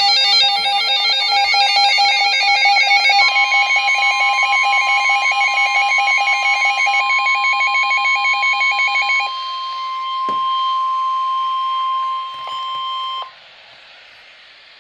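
Weather radio's alert alarm: a rapid pulsing electronic beep for about the first nine seconds, joined about three seconds in by the steady NOAA Weather Radio warning alarm tone, which goes on alone for a few more seconds and then stops. The tone announces a severe thunderstorm warning.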